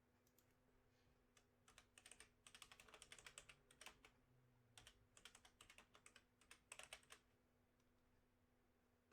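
Faint typing on a computer keyboard: quick runs of keystrokes in several bursts, starting about a second and a half in and stopping about seven seconds in.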